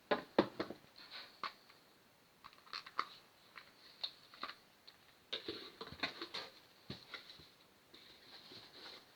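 Kettle packaging being handled: irregular rustling and crinkling with sharp clicks and light taps.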